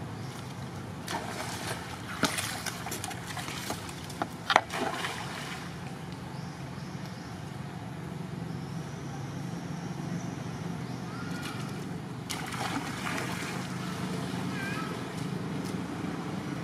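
Young macaques splashing and scrambling in a shallow stream: bursts of splashing for a few seconds near the start, with one sharp splash the loudest, and again about twelve seconds in, over a steady low hum.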